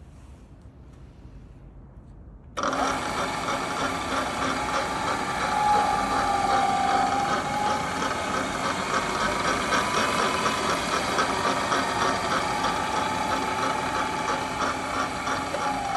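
Kondia FV-1 milling machine's spindle drive switching on about two and a half seconds in and running, with a steady gear whine over a fast mechanical rattle. Near the end the whine starts to fall in pitch as the drive winds down.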